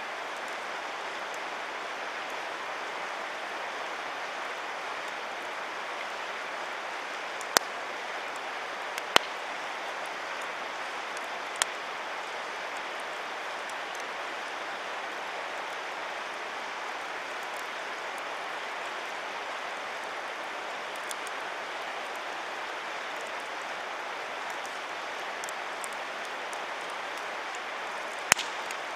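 Wood campfire burning over a steady rushing hiss, with a few sharp crackling pops: three in the first half and a loud one near the end.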